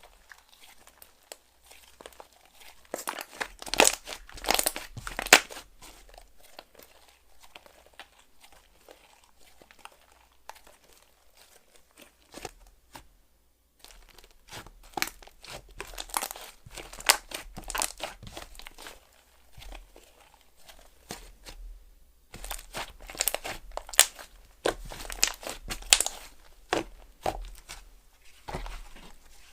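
Toffee Slime's 'Apple Jam Cream' slime being squeezed, poked and pressed by hand, giving clusters of crackly clicks and pops, with quieter handling between them.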